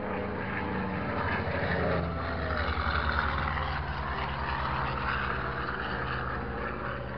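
Single-engine propeller airplane flying past, its engine giving a steady drone.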